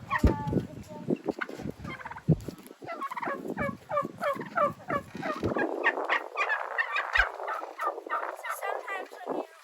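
Domestic turkeys gobbling again and again, the rapid, wavering calls overlapping, thicker in the second half.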